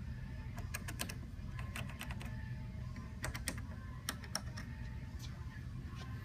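Short sharp clicks and taps in small clusters as a hand handles a motorcycle windshield and its metal adjustment brackets and bolts.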